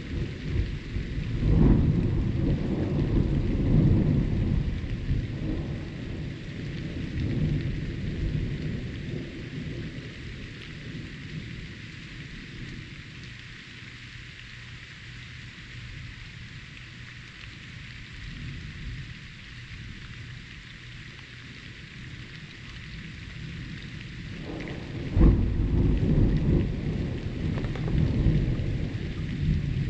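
Thunderstorm: steady rain hiss with rolling thunder that rumbles heavily and fades away over the first ten seconds or so. About 25 seconds in, a sudden sharp thunderclap breaks in and rumbles on.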